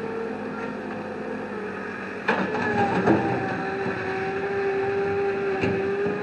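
A machine engine running steadily with a whining note, a sharp knock a little over two seconds in, after which the note settles slightly lower.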